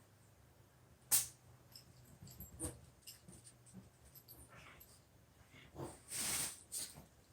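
A macaw sneezing: one sharp sneeze about a second in, small clicks in between, then a cluster of short noisy bursts near the end.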